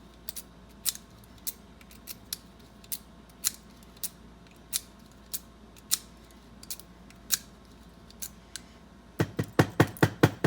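Small metal parts of an antique mortise lock clicking as its freshly lubricated, toothed mechanism is worked by hand: light clicks roughly every half second, then a quick run of louder clacks near the end.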